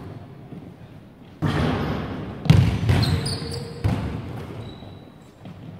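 Basketball bouncing in a large sports hall: three hard thuds about a second apart, each echoing on as it dies away.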